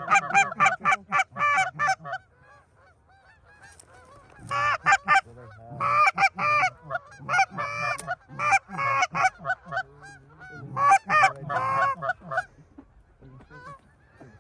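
Goose honking: rapid honks and clucks in loud bursts of a second or two, with quieter stretches between them.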